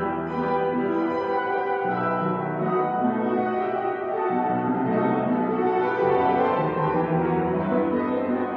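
Grand piano played four hands, with sustained chords and notes changing about once a second, ringing in a large church.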